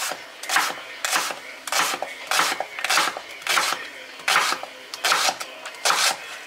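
Kitchen knife dicing a raw onion on a bamboo cutting board: about ten even cuts, a little under two a second, each blade stroke going through the onion and striking the board.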